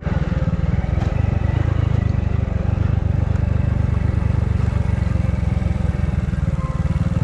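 Hero Splendor motorcycle's single-cylinder four-stroke engine running steadily at low revs, with a rapid, even exhaust beat.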